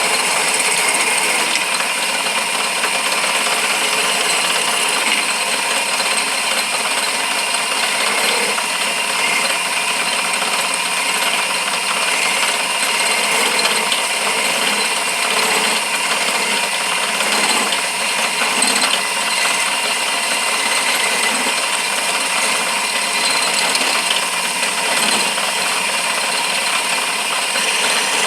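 A lathe running steadily with a constant whine and hiss while a hand-held turning tool cuts the spinning workpiece.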